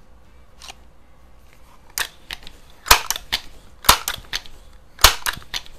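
Crosman 2100 Classic multi-pump air rifle being pumped: four strokes about a second apart, each closing with a sharp clack followed by lighter clicks.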